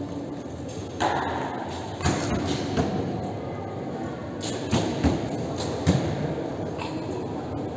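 Several archers shooting in turn: a string of sharp, short thuds and snaps at irregular intervals, from bows being loosed and arrows striking the target butts.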